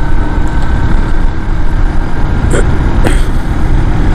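Motorcycle riding along at a steady cruising speed, heard mostly as loud, low wind noise on the microphone with the engine underneath. Two short clicks about two and a half and three seconds in.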